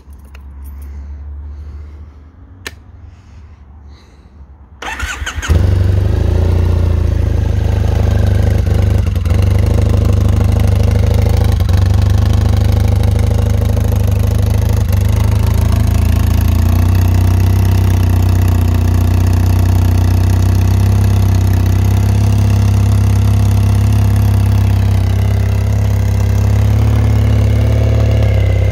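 Triumph Bonneville's parallel-twin engine being cold started: it catches about five seconds in and then idles steadily.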